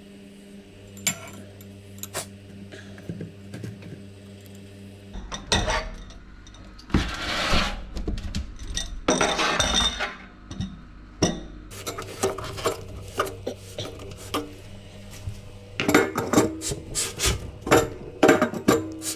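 Metal tools and pipe fittings clinking, knocking and scraping during plumbing work on a hot water cylinder, over a steady low hum. A few seconds of rushing noise come about a third of the way in, and the clatter gets busier near the end.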